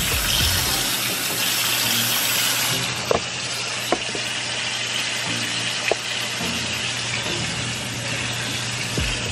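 Kitchen faucet running water onto shrimp in a metal colander in a stainless steel sink: a steady rush of water, with a few light knocks.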